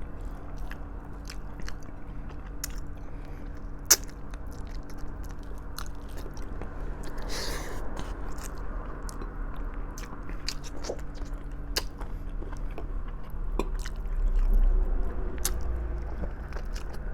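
Close-up chewing and biting of soft braised pork trotters, with many small wet clicks and smacks and one sharp click about four seconds in.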